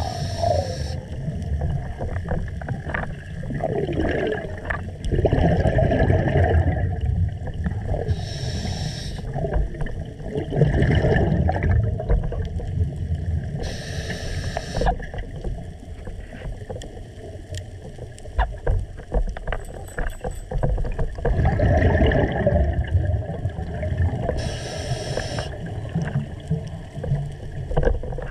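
Scuba diver breathing through a regulator underwater: a short hiss with each inhaled breath, four times, between long low gurgling rumbles of exhaled bubbles.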